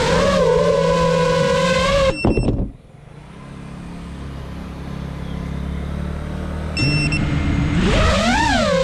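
Brushless motors of a GEPRC Mark 5 FPV quadcopter whining in flight, cutting off about two seconds in after a few short high beeps as the quad sets down. A low hum follows, more short beeps come near seven seconds, and the motors spin back up, the whine rising and falling in pitch as it takes off again.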